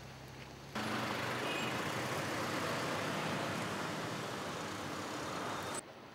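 Road vehicles passing: a steady rush of engine and tyre noise that cuts in abruptly about a second in and cuts off near the end.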